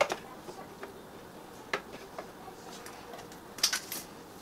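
A handful of short sharp clicks and soft taps as the chicken-filled sausage casing is handled on the meat grinder's stuffing tube. The loudest come as a quick pair near the end.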